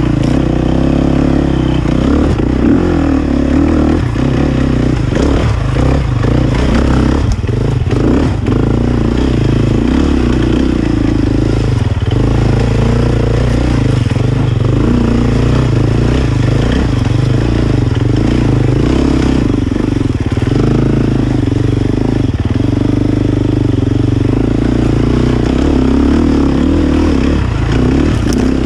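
KTM dirt bike engine running on a trail ride, its pitch rising and falling as the throttle opens and closes, with occasional knocks and rattles from the bike going over rough ground.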